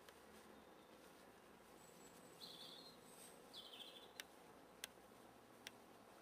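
Near silence in woodland, broken by two brief, faint high bird chirps about two and a half seconds in and a second later, then three sharp faint clicks.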